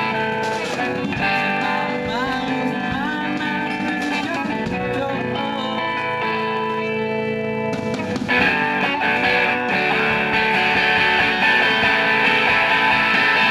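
Live rock band with guitars and drums playing a song, with sustained guitar notes and a few sliding pitches early on. About eight seconds in, the band gets louder and fuller.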